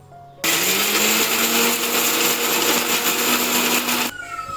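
Electric mixer grinder (mixie) switched on, grinding roasted spices with a little water into a fine paste. It starts about half a second in, its motor pitch rising briefly as it gets up to speed, runs steadily and loudly, then cuts off suddenly near the end.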